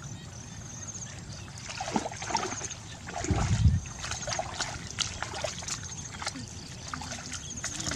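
Splashing and sloshing of feet wading through shallow muddy water, with one heavy, low slosh about three and a half seconds in.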